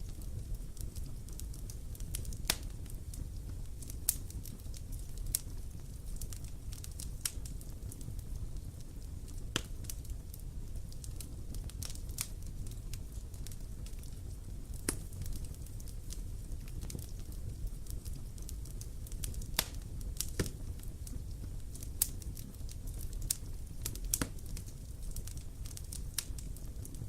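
Campfire crackling: wood burning with frequent sharp, irregular pops over a steady low rumble of flame.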